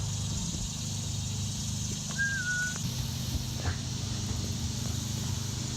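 A steady low hum from a small motor running, its pitch shifting slightly about three seconds in, under a steady high hiss. About two seconds in there is a short whistled call that steps down in pitch once.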